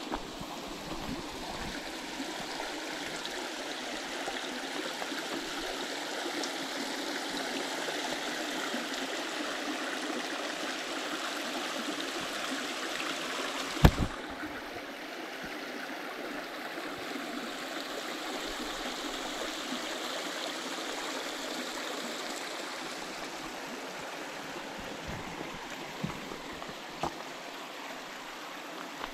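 Creek water running steadily, with a single sharp knock about halfway through.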